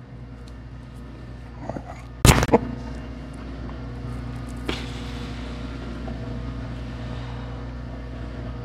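Neck joints cracking under a chiropractic cervical adjustment: a quick burst of two or three loud pops about two seconds in, then a single fainter pop near the five-second mark, over a steady low hum.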